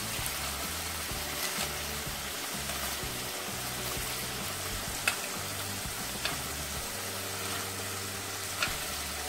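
Shrimp sizzling in butter in a frying pan, a steady hiss. A few light clicks of metal tongs against the pan as the shrimp are lifted out.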